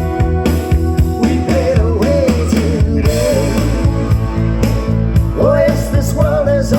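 Song with singing, guitar and drums played loud through a dual 12-inch loudspeaker system, with a strong, sustained bass line.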